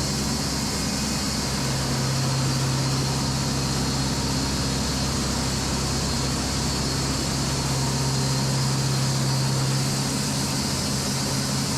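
Echo 45HD2 production band sawmill running: a steady machine hum over a constant hiss, the hum growing stronger about a second and a half in and easing near the end.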